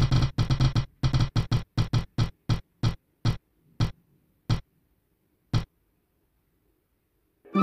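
Digital prize-wheel spinner ticking as the wheel winds down: rapid ticks that come further and further apart until a last single tick, then stop as the wheel settles on a winner. Music starts up again right at the end.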